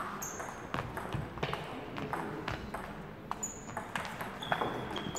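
Table tennis rally: the ball clicking off the bats and bouncing on the table in quick, irregular succession, with a few short high squeaks of shoes on the court floor.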